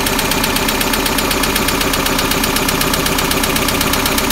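International Harvester 152 slant-four engine of a 1965 Scout 800 idling steadily with an even, rapid beat. It idles smoothly, a healthy engine pulling about 22 inches of vacuum while its idle mixture is being set.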